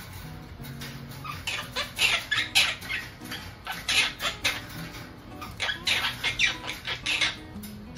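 Pet parrots chattering in quick runs of short, high chirps and squawks, busiest from about two seconds in.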